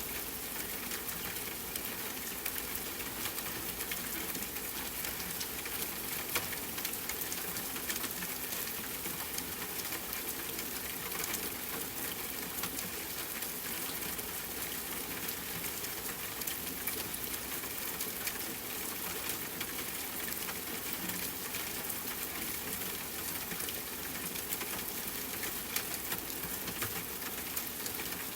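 Steady rain falling on tent fabric, mixed with a crackling campfire whose small sharp pops and ticks come scattered throughout.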